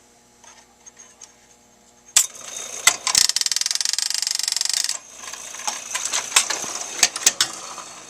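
Wurlitzer 1400 jukebox mechanism running: a sharp click about two seconds in, then a loud, fast mechanical rattle for about two seconds, followed by scattered clicks and knocks.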